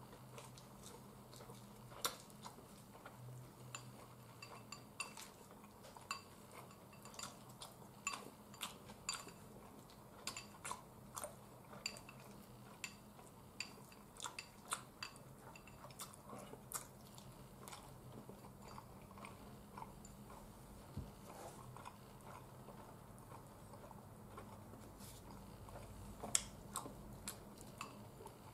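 Eating sounds: wooden chopsticks clicking against a ceramic bowl, with chewing, as many short irregular clicks. The sharpest clicks come about two seconds in and near the end.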